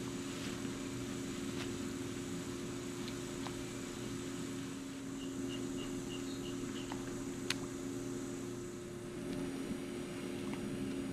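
A steady low hum over a faint hiss, with a single sharp click about seven and a half seconds in and a short run of faint high chirps just past the middle.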